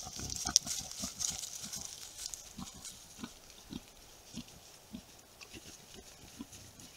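Wild boars rooting through dry leaf litter, with rustling and crunching underfoot that is loudest in the first two seconds. Short low grunts follow at about one every half-second and fade toward the end.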